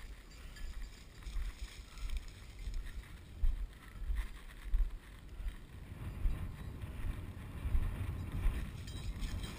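Wind buffeting the microphone in an irregular low rumble, with footsteps and the rustle of dry grass as a person walks through a field of tall grass and stubble.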